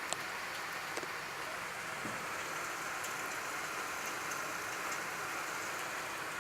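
Moderate rain falling steadily, an even hiss of drops on surfaces, with a couple of sharper drop ticks in the first second.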